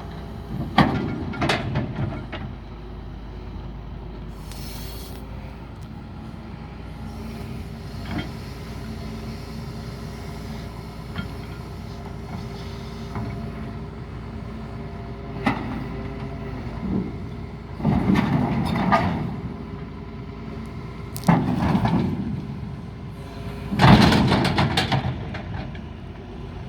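Doosan excavator's diesel engine running steadily while the machine is unloaded, with several loud bursts of metal clanking and knocks, the loudest near the end; one track does not move because its final drive has failed.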